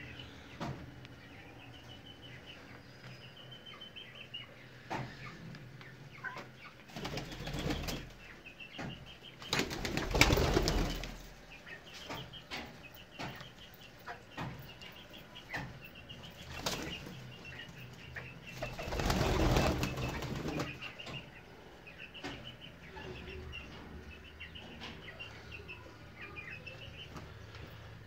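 Pigeons' wings flapping in two loud bursts of a second or two each, about ten and nineteen seconds in, with faint short high bird chirps repeating throughout.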